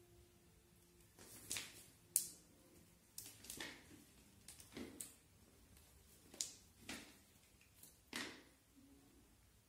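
Kittens playing with a feather wand toy: a dozen or so faint, short rustles and light taps, irregularly spaced, from paws scrambling on tile and rug and the feathers swishing.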